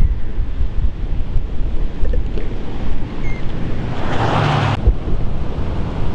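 Strong wind buffeting the microphone, a steady low rumble, with a brief louder hiss about four seconds in that cuts off sharply.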